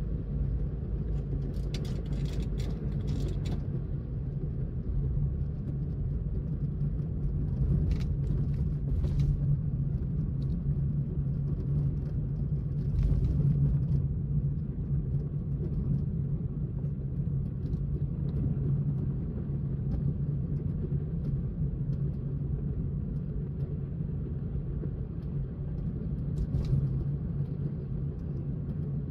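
Steady low rumble of a car driving along the road, engine and tyre noise, with a few light clicks about two to three seconds in and again around eight to nine seconds in.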